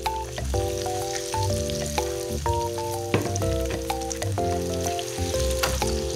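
A crumb-coated wedge of cheese deep-frying in a fryer basin of hot oil: steady sizzling and bubbling with scattered sharp pops. A light background tune of held, mallet-like notes plays throughout.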